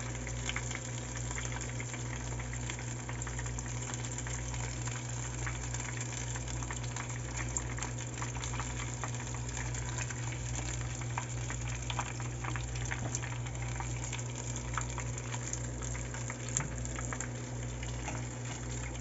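Crab rangoon wontons deep-frying in hot vegetable oil: a steady sizzle dotted with small crackles and pops, over a low steady hum.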